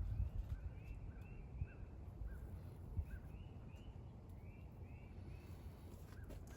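Small birds chirping over and over in short rising-and-falling notes, over a low rumble of wind on the microphone.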